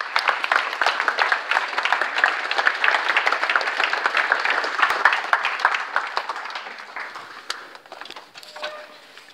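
Audience applauding: a dense patter of many hands clapping that thins out and dies away over the last few seconds.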